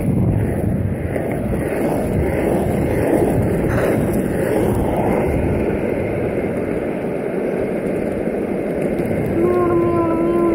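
Skateboard wheels rolling over asphalt: a steady, loud rolling noise with wind on the microphone. About a second before the end, a steady held tone with overtones comes in.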